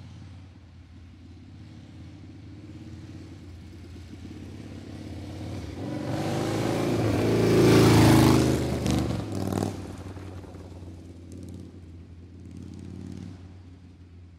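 A motor vehicle passing by: a low engine hum with rising road noise swells to a loud peak about eight seconds in and then fades away, with a few sharp clicks as it recedes and a smaller swell near the end.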